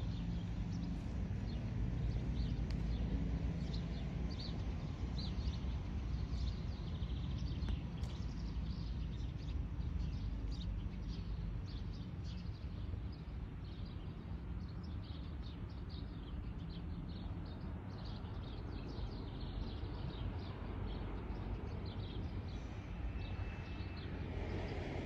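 Outdoor ambience: a steady low rumble with many short, high bird chirps scattered throughout.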